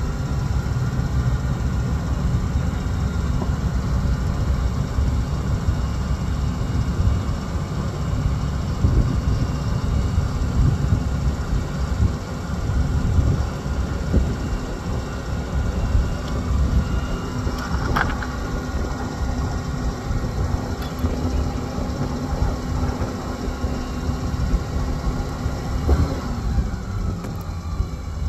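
An engine running steadily with a low rumble and a steady hum that slides down in pitch and stops near the end. A single sharp click about two-thirds of the way through.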